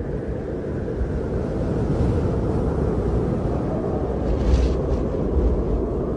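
Steady low rumbling noise with no tune or voice, swelling briefly into a hiss about four and a half seconds in.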